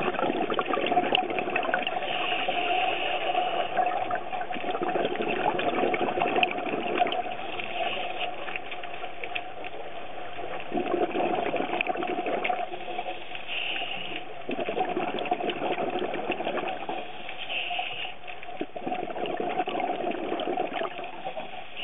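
Underwater sound picked up by the camera: a steady watery rush with louder bursts of bubbling coming back every four to five seconds, the rhythm of a scuba diver breathing through a regulator.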